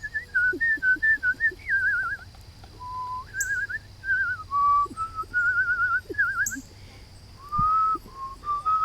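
A person whistling a warbling tune in short phrases, the pitch wavering and trilling up and down, with pauses between phrases.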